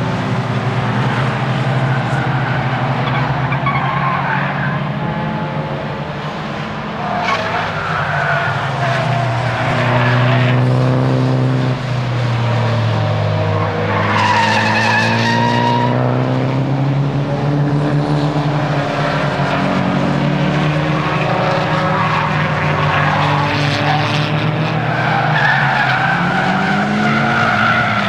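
Nissan S15 Silvia's four-cylinder engine driven hard on a race circuit, its pitch climbing and dropping back as it revs and eases off, with the tyres squealing through corners several times.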